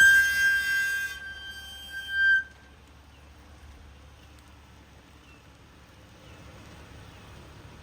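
2024 Toyota Tundra brakes squealing: a loud, steady high-pitched squeal with several overtones that dips briefly and then stops about two and a half seconds in, leaving only faint low rumble. This is the brake squeal that Toyota's service bulletin T-SB-0043-24 addresses.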